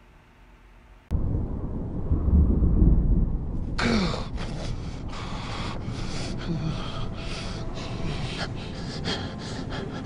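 Film soundtrack of a crucifixion: a low rumble starts suddenly about a second in, then a man's harsh, labored gasps and breaths over a steady rushing noise.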